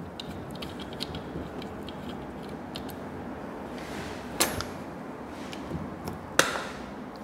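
Handling noises at a lab bench: a few light clicks and then two sharp knocks, about two seconds apart, from battery cell caps and a plastic acid bottle being moved and set down, over a steady background hiss.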